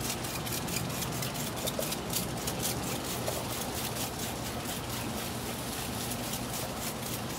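Hand trigger spray bottle misting apple cider vinegar and water onto pork ribs in a smoker: rapid, repeated short hisses of spray, squirt after squirt.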